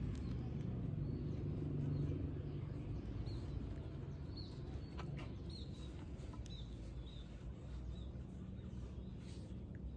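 Small birds chirping faintly, short high chirps about once a second from a few seconds in, over a steady low background rumble.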